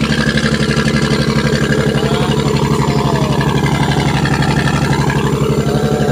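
Boat engine running steadily, heard on deck, with an even, fast throb.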